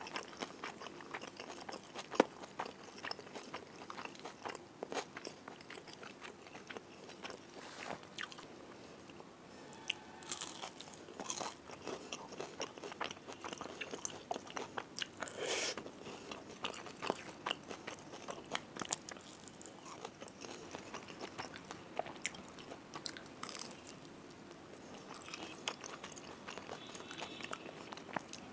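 Close-miked eating: chewing and crunching of fried fish and rice eaten by hand, with many sharp, irregular crunches throughout.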